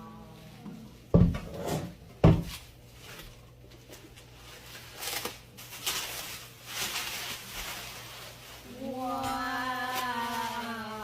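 Unboxing handling of a shipping box and its packing: two sharp knocks about one and two seconds in, then rustling of packing material. Near the end a person's voice holds a long, steady tone.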